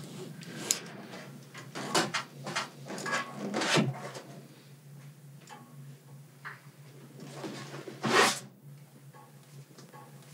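A series of short knocks and rustles of things being handled, with a louder knock about eight seconds in, over a steady low hum.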